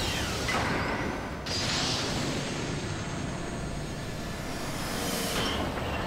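Spaceship sound effects as a cargo container is detached: a steady low rumble, a sudden burst of hissing like venting gas about a second and a half in, and another rushing swell near the end.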